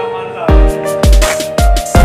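Background music with a heavy bass-drum beat, about two beats a second, under held synth tones.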